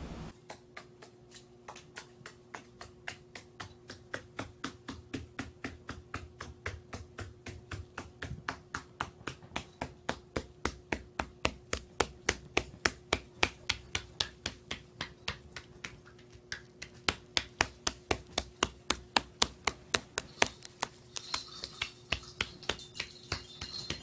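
Small parrot's claws clicking on a wooden floor as it walks, a fast, even run of sharp ticks about four a second, louder in the middle and again near the end, over a faint steady hum.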